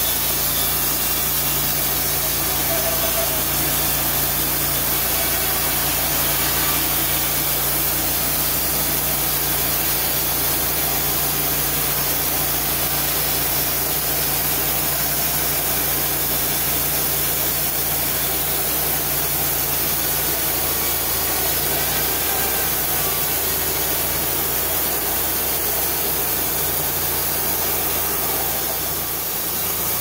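Engine-driven portable bandsaw mill sawing lengthwise through a pine beam: the engine runs steadily under load while the band blade cuts. The low hum dips briefly near the end.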